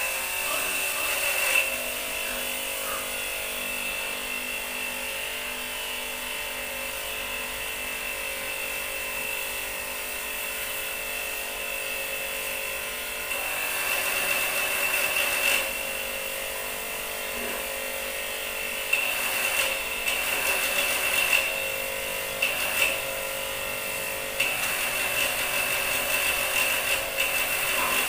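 Pressure washer motor running steadily with a high whine while its spray gun jets water onto muddy pigs and the concrete floor. It gets louder about halfway through and again near the end, with short uneven surges.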